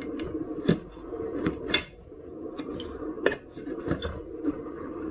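Metal hand tools clinking and clanking against metal wheel parts during a tyre change on a KingSong KS16X electric unicycle. About six sharp clanks at uneven intervals sound over a steady low background noise.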